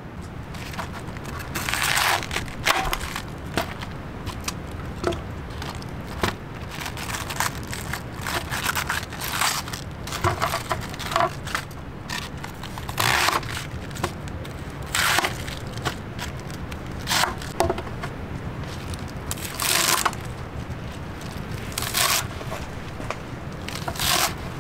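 Kitchen knife cutting through crisp cabbage leaves and green stalks on a plastic cutting board: short crunching cuts, one every second or two.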